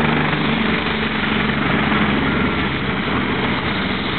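Helicopters running on the ground with rotors turning after landing: a steady engine whine under rapid rotor-blade chop.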